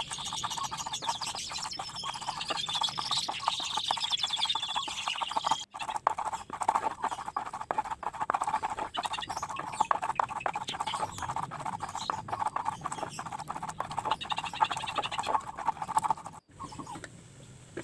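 Stone pestle grinding and pounding spice paste on a flat stone mortar (cobek ulekan): a fast, uneven run of scraping knocks, with a short break about six seconds in, dying down near the end.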